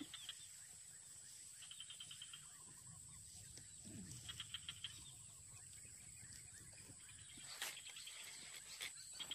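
Faint outdoor natural ambience: a steady high-pitched drone with short, rapid chirping trills from wild animals three times, over a low background hum, and a single sharp click about three quarters of the way through.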